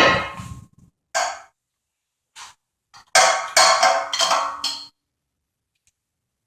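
Metal clanks and knocks from forcing the seized moving jaw of a Wilton bench vise. A loud ringing knock comes at the start, then a short clank, then a run of several ringing clanks and scrapes about three to five seconds in.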